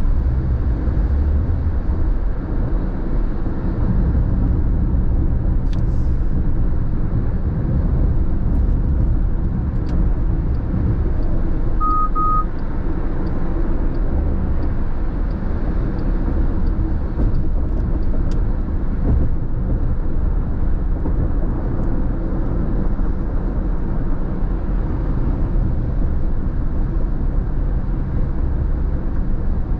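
Road and tyre noise inside a car's cabin at freeway speed on wet pavement: a steady low rumble. Two short beeps sound about twelve seconds in.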